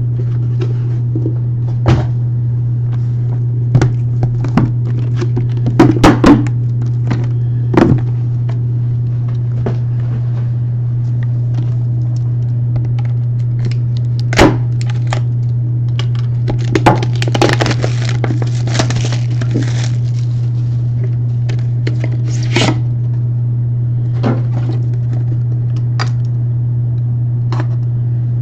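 A cardboard case being opened with a key and its boxes handled: scattered knocks and clicks, with a stretch of scraping and tearing about 17 seconds in, over a steady low hum.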